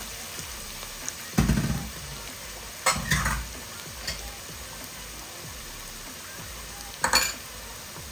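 Sliced onions, garlic and ginger sizzling steadily in hot oil in a frying pan as they are stirred, with three louder clatters of a utensil against the pan: about a second and a half in, around three seconds in, and about seven seconds in.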